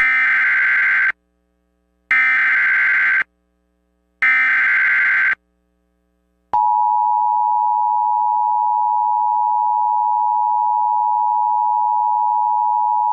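Emergency Alert System SAME header: three bursts of shrill digital data noise, each about a second long and a second apart. About six and a half seconds in, the steady two-tone EAS attention signal starts and holds.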